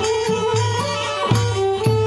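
Mahori kantrum folk ensemble playing: a melody of held notes stepping between pitches over low, pitched drum strokes about twice a second.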